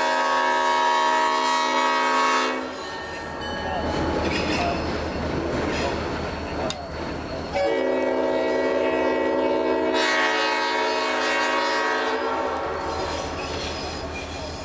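Leslie five-chime locomotive air horn sounding a full chord. One blast cuts off about two and a half seconds in, and a second long blast starts about seven and a half seconds in and holds until just before the end. Between the blasts a diesel locomotive engine idles with a steady low throb.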